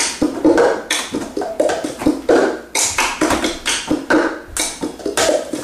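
Cup-game rhythm: hands clapping and a plastic cup being tapped, lifted and knocked down on the floor in a quick, even pattern.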